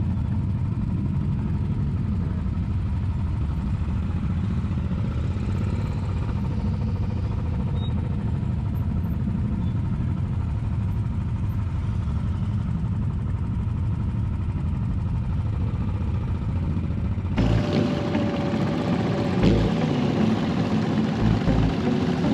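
Several motorcycle engines idling and rolling along at low revs, a steady low rumble. About seventeen seconds in the sound changes abruptly to a closer, busier mix of engines idling in a queue.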